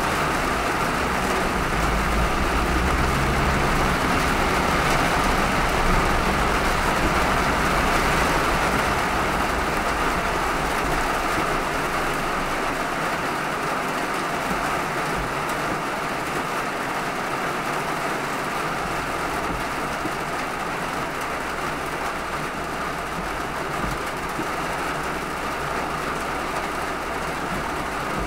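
Steady hiss of heavy rain and tyres on a wet road as a car drives, with a low rumble through roughly the first half that then fades away.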